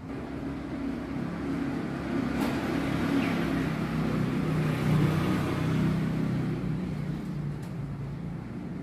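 Motor vehicle engine hum from city traffic, low and steady, growing louder to a peak about five seconds in and then easing off.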